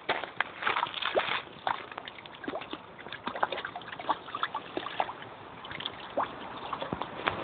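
Water splashing and sloshing in irregular bursts, with many sharp clicks and knocks, as a mink tugs at a small salmon held on a fishing line in the water.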